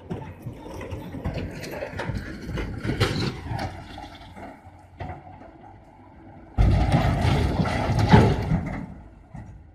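Dump truck rolling over down an embankment. After some knocking and clattering, a heavy crash and rumble starts suddenly about two-thirds of the way through and lasts a couple of seconds, loudest near its end.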